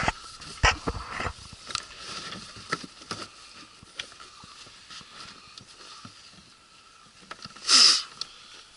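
Scattered light clicks and knocks of hands working on an outboard motor's fuel hose and red plastic fuel tank. About eight seconds in, a short, loud rushing sound stands out above the handling noise.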